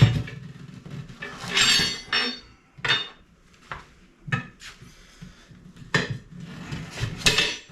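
Tire levers clanking and scraping against an aluminum wheel rim as the tire is pried off after its bead has broken free: a run of sharp metallic knocks, with a longer scrape about a second and a half in.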